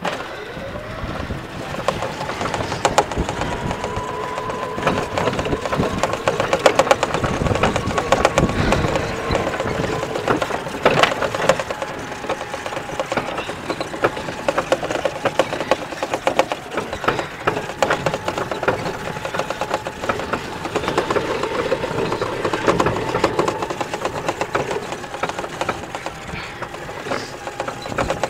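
A 20-year-old battery-powered electric golf cart driving. Its motor whine climbs over the first several seconds as it picks up speed, then holds steady. Throughout there is constant rattling and clattering from the cart's body.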